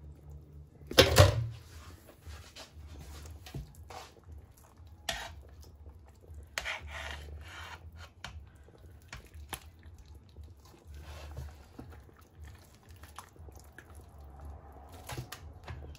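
Metal kitchen tongs clanking and scraping against a large enamel roasting pan as braised beef chunks are lifted out of the broth. One loud clank about a second in, then lighter clicks and scrapes on and off.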